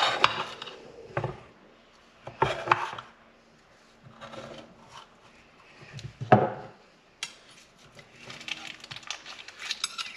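Metal spatula cutting through cookie bars and scraping against a glass baking dish in several separate strokes, followed near the end by a quicker run of small clicks and scrapes as a bar is worked loose.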